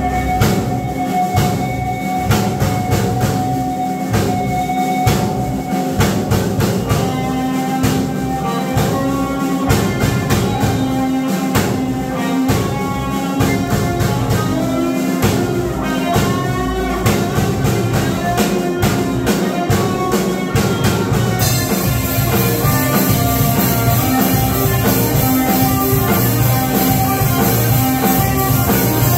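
Live rock band playing on electric guitars, keyboard and drum kit, with a steady drum beat under held guitar and keyboard notes. About 21 seconds in, the sound turns brighter and denser.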